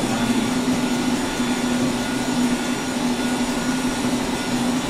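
Electric heat gun running steadily: a constant fan-and-motor whir with a low steady hum.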